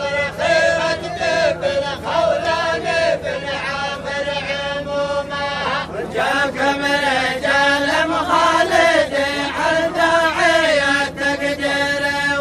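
Men chanting a tribal greeting poem (tarh) together in long, drawn-out melodic lines, with a brief break about six seconds in.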